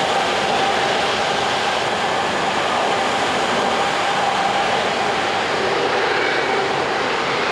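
Airbus A330 jet engines running at low taxi power as the airliner rolls slowly: a steady rush with a held whine that fades toward the end.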